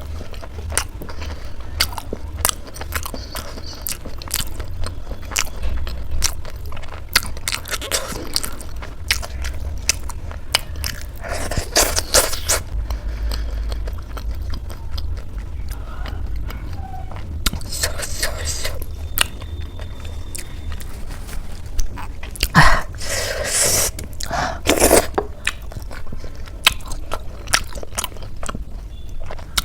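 Close-up eating sounds: crisp samosa crust crunching between the teeth and steady chewing, with scattered clicks and a few louder crunches. A low hum runs underneath.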